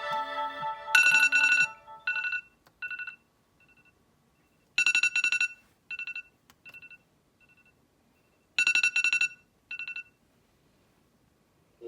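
A phone alarm tone: a short trill of rapid electronic beeps at a fixed pitch, repeating about every four seconds, each followed by a few fainter echoing repeats. In the first couple of seconds a melodic ringtone finishes while the phone's vibration motor buzzes in short pulses.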